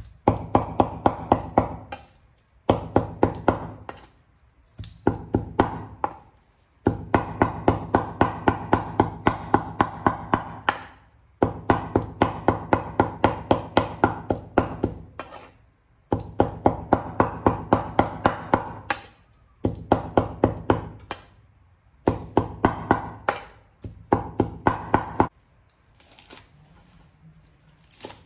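Steel cleaver mincing raw pork on a wooden chopping board: rapid, even chopping at about five strikes a second, in runs of a few seconds with short pauses. The chopping stops near the end.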